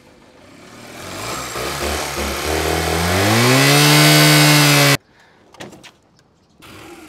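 Honda CD125 motorcycle engine revving up from a low, uneven idle and holding high revs, cut off abruptly about five seconds in. A few faint clicks follow.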